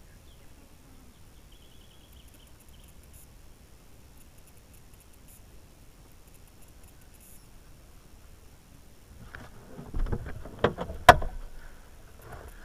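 Near-quiet forest background, then about nine seconds in a run of clunks and knocks from someone working at the UAZ, ending in one sharp bang near the end.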